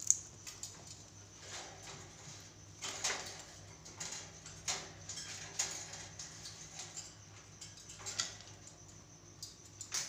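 Scattered sharp clicks and taps at a wire cage of ringneck parakeets being hand-fed peanuts, about half a dozen louder ones spread irregularly, the strongest right at the start and about three seconds in. A faint steady low hum runs underneath.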